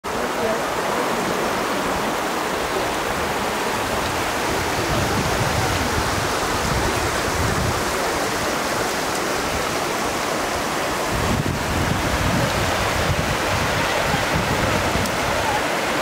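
Mountain creek water rushing and splashing over rocks just below a waterfall: a steady, even rush with no pauses.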